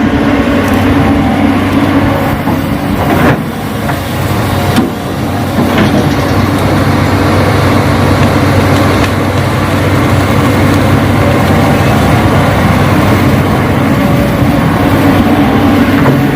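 Radio-controlled Hitachi model excavator running with a steady mechanical drone, with a couple of brief knocks about three and five seconds in.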